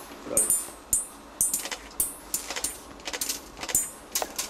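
Irregular light metallic clinks and jingles: about a dozen sharp ticks over a few seconds, several with a brief high ringing.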